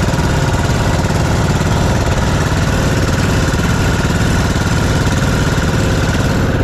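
Outrigger fishing boat's engine running steadily and loud, close by, with a fast, even beat.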